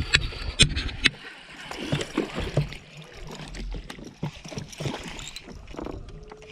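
A just-hooked bass being landed and handled in a bass boat: a few sharp clicks and knocks in the first second, then irregular knocks and water sounds.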